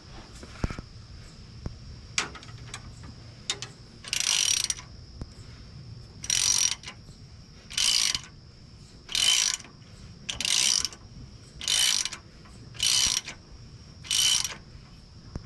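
Ratchet wrench worked in repeated strokes: about eight bursts of rapid clicking, each a little over a second apart, with a few lighter single clicks before them.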